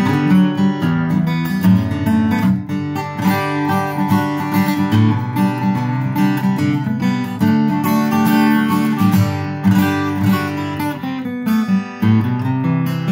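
Cat's Eyes CE-200 dreadnought acoustic guitar, made by Tokai Gakki in the 1970s and freshly strung with 11-gauge strings, played fingerstyle: a steady run of plucked notes with a bass line under the melody.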